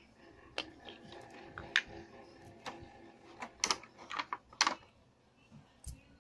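Small wooden dollhouse furniture pieces clacking and knocking as they are handled and set down on a tiled floor: a run of irregular sharp clicks, thickest in the middle, with one more near the end.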